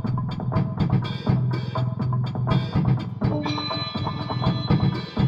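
Instrumental music: an electric guitar played over a steady drum beat and a low bass line. About three seconds in, a held guitar chord rings out over the beat.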